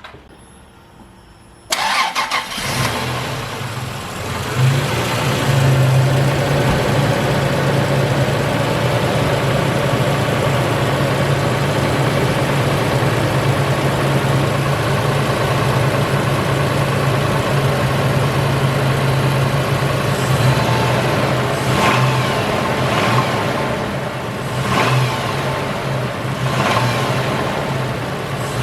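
Holden Rodeo 3.6-litre V6 engine started up, catching about two seconds in and then idling steadily, with a few short changes in engine speed near the end. This is the engine running again with its sump refitted after big end bearing work.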